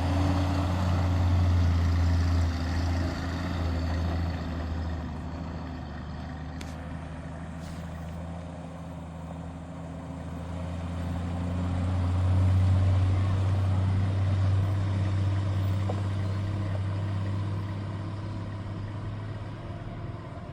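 Jeep Wagoneer engine running with a steady low drone, growing louder and quieter in turn, loudest near the start and again about twelve seconds in.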